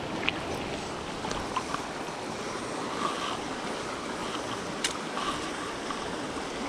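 Shallow, rocky mountain trout stream flowing: a steady rush of running water, with a few short clicks.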